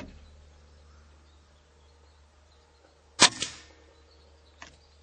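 Silenced .22 air rifle firing a single shot about three seconds in: a sharp report followed at once by a smaller second knock and a short tail. Faint clicks come before and after it.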